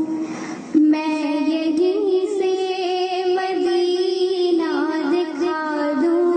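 A girl singing a naat, a devotional poem, solo, with long held notes and wavering ornaments. There is a brief breathy break just under a second in before the voice comes back.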